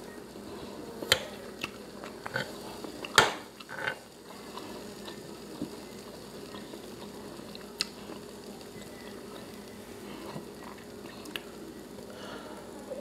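Eating sounds: a plastic knife and fork clicking and scraping on a plastic tray of breaded steak and gravy, with chewing between. The clicks are scattered, the loudest about three seconds in, followed by a short scrape.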